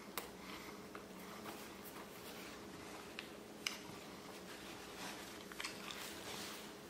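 Quiet eating sounds: chewing a taco, a paper napkin being handled, and a few small sharp clicks and taps, over a faint steady low hum.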